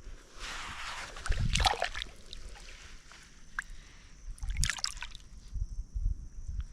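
Water splashing and dribbling, with a few sharp clicks and low knocks.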